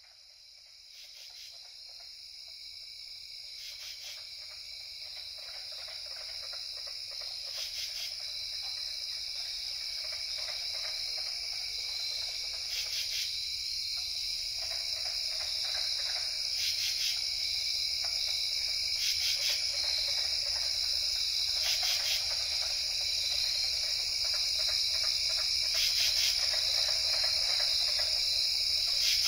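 Insect chorus, a steady high-pitched trill that fades in from silence and grows gradually louder, with faint pulses every few seconds.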